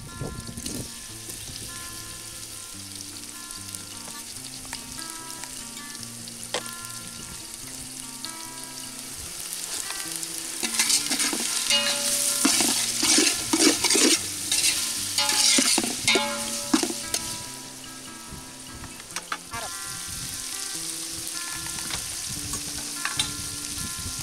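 Chopped onions, green chillies and tomatoes sizzling in hot oil in a metal pot. About ten seconds in, a metal ladle stirs and scrapes against the pot for several seconds and the sizzling grows louder, then both settle back to a steady sizzle.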